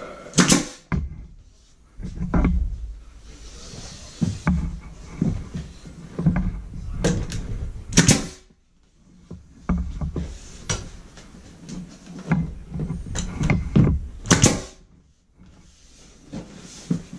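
Pneumatic nail gun firing nails into a wooden trim rail: over a dozen sharp shots at irregular intervals, some in quick pairs.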